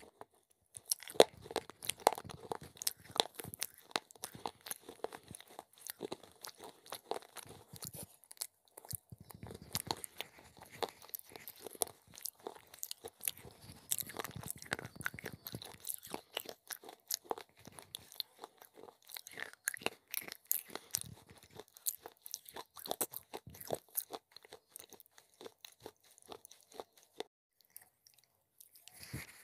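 Close-up crunching and chewing of broken baked-clay pot pieces: dense, crisp cracks and grinding in the mouth, with a short pause near the end.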